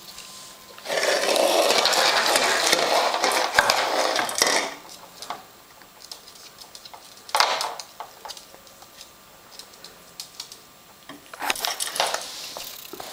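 A ferret's plastic water bottle with a metal cap scraping and clattering across a wooden floor as the ferret pushes it about. A long rough scrape lasts several seconds, and shorter knocks and rattles follow later.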